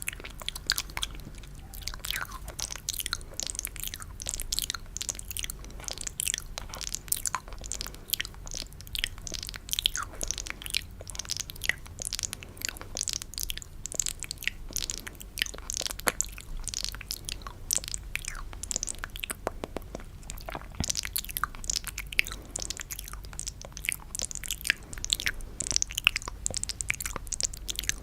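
Close-miked ASMR wet mouth sounds: a dense, irregular stream of quick sticky clicks and smacks, as in spit painting.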